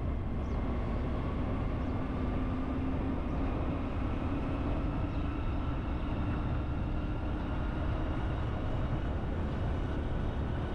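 Steady riding noise from a moving vehicle: a low wind rumble on the microphone and an engine hum that rises slowly in pitch as the vehicle gathers speed.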